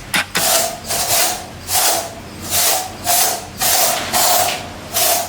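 Rhythmic back-and-forth scrubbing strokes, about three every two seconds, each a brushy hiss with a faint squeak.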